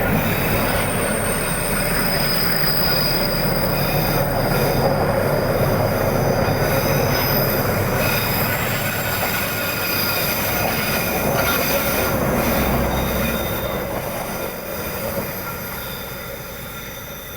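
A passenger train runs close by, its steel wheels squealing on the rails in several steady high tones over the rumble of the train. The sound fades away over the last few seconds as the train moves off.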